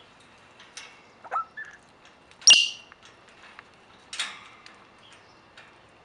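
An Amazon parrot gives a few short, sharp calls: a small rising squeak a little over a second in, the loudest call about two and a half seconds in, and another about four seconds in. Faint clicks come in between.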